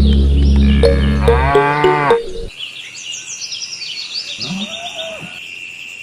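A cow mooing, over background music with a steady beat that cuts off about two and a half seconds in. Crickets and birds chirp after the music stops.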